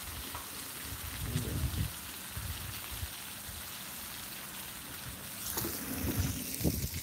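Bacon and beef patties sizzling on a Blackstone flat-top griddle: a steady, fine crackling hiss, with wind buffeting the microphone in low gusts.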